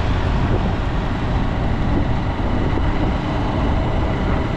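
Motorcycle riding at a steady speed along a paved road: engine running under a steady rush of wind and road noise, with a strong low rumble.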